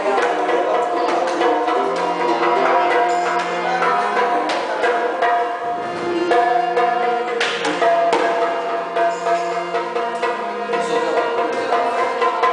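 Harmonium playing a melody over a held low drone, with hand drums (Assamese dhol and khol) beating along in frequent sharp strokes.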